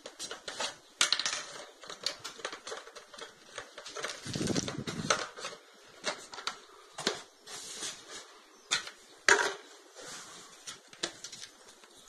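Cardboard box and packaging being handled and unpacked: an irregular run of clicks, taps and scrapes with rustling between them, and a sharper knock about a second in and another near nine seconds.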